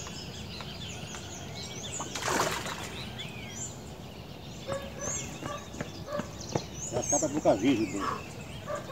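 Several birds chirping and calling with short rising and falling whistles, and a lower, wavering call between about seven and eight seconds in. A brief rushing noise about two seconds in is the loudest moment.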